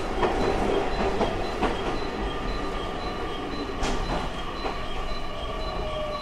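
JR Kyushu 817 series electric train running: wheels clicking over rail joints over a steady rumble, with a thin steady whine and a lower tone falling slightly in pitch near the end.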